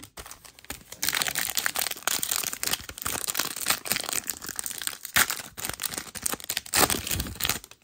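A plastic trading-card pack wrapper being crinkled and torn open, crackling continuously from about a second in, with a louder crunch near the end.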